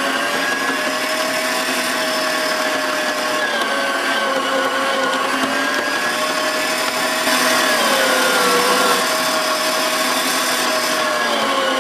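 TS110 electric meat grinder's motor running steadily as raw meat is fed through it, a constant whine that sags slightly in pitch a few times as meat is pushed into the auger.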